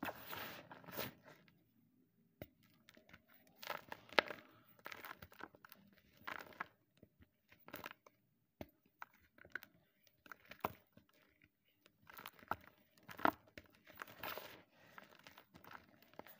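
Blocks of gym chalk crushed and crumbled by hand into loose powder: irregular dry crunches and crumbling crackles, with a short lull about two seconds in and a busier spell near the end.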